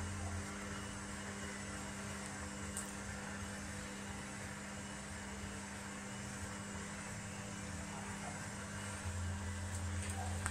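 Hotpoint AQXL105 front-loading washing machine running with a steady motor hum; a deeper hum swells in near the end.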